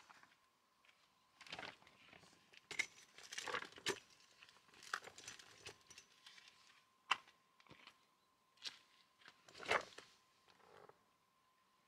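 A folding camp chair being set down and sat in: its nylon fabric rustles and crinkles and its metal frame clicks, with one sharp click about seven seconds in and a longer rustle near ten seconds as a person settles into it. A faint steady high tone runs underneath.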